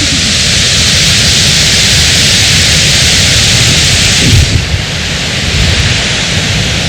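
Waterfall rushing close by: a loud, steady hiss of falling water with an uneven low rumble beneath it. The top of the hiss thins a little about four and a half seconds in.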